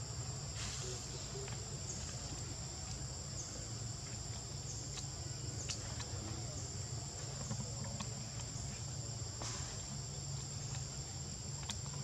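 Steady high-pitched chorus of insects droning without a break, over a low steady rumble, with a few faint clicks.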